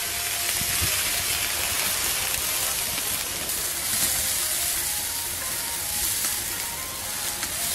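Golden soup boiling hard in a wok with enoki mushrooms in it: a steady bubbling hiss.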